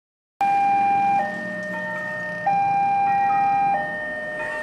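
Railway level-crossing warning alarm sounding as a train approaches: an electronic two-tone signal alternating between a louder higher tone and a lower one, each held about a second. It starts just under half a second in.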